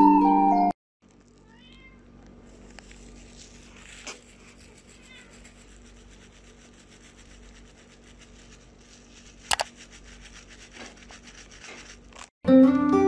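A small kitten mewing faintly, a few thin, high mews over quiet room noise, with a single sharp tap about nine and a half seconds in. Louder background music cuts off just after the start and comes back near the end.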